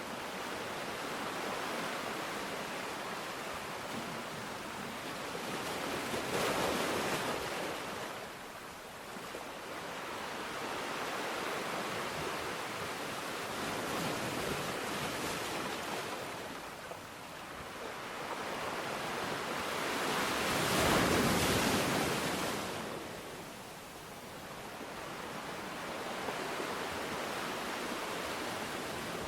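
Ocean surf: a steady wash of waves with two louder swells of breaking water, about seven seconds in and again about twenty-one seconds in.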